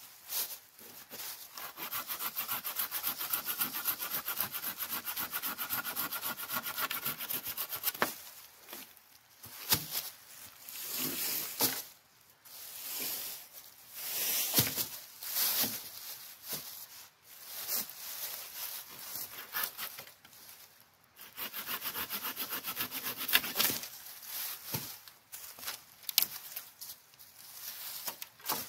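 A folding hand saw cutting through a thin green branch in quick, even strokes for about seven seconds, then a second, shorter bout of sawing later on. In between, dry leaf litter rustles and branches knock as they are moved.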